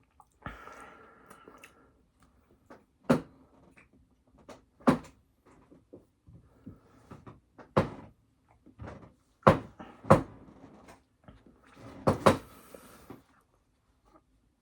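Close-miked eating and food-handling noises: a series of sharp knocks and clicks a second or two apart, with soft mouth sounds between them and a short rustle of packaging near the end.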